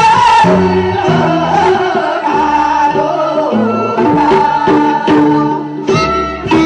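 Women singing a song into microphones over amplified backing music with a bass line and a regular drum beat, played through the stage PA.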